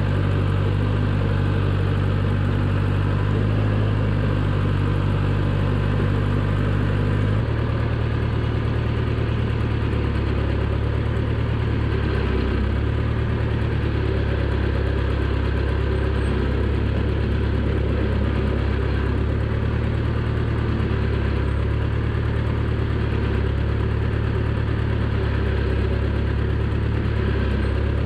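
The 1975 John Deere 450B bulldozer's four-cylinder diesel engine runs steadily, heard close from the operator's seat. Its note changes abruptly about seven seconds in.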